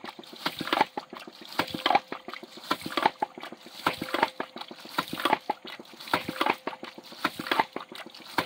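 Hydraulic ram pump running: its waste valve clacks shut and water splashes out in a rhythmic pulse about once a second, each cycle a cluster of sharp taps over the gush of spilling water.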